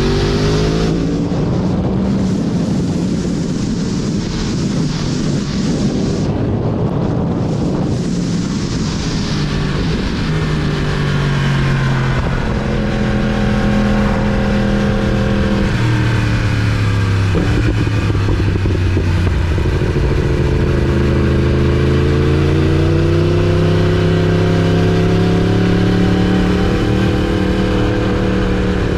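2019 Yamaha R1's crossplane inline-four engine running at road speed under heavy wind rush. The engine note drops in the first second, then rises and falls gently with the throttle, with a short break a little past halfway.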